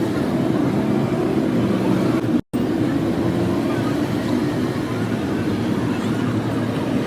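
Honda CD 70 motorcycle's single-cylinder four-stroke engine running steadily. The sound cuts out completely for a split second about two and a half seconds in.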